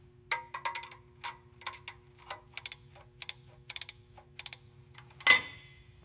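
Metal parts clicking and clinking as a component is fitted into place: a quick run of light taps with short ringing tails, then a louder metallic clank that rings briefly about five seconds in.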